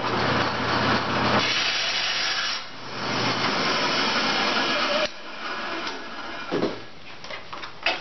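Bandsaw running and cutting a short piece off a wooden dowel, a steady motor hum under the noise of the blade in the wood. The noise drops away about five seconds in, leaving quieter handling sounds and a knock near the end.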